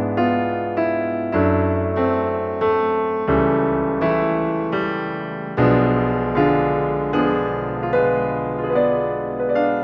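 Background music played on piano or electric piano: a gentle melody with notes struck about every half second over slowly changing bass notes.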